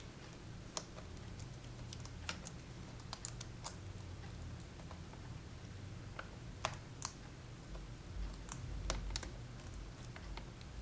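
Irregular light clicks and taps of plastic and small parts as a laptop's replacement LCD panel and its display cable connector are handled and fitted, over a faint low hum.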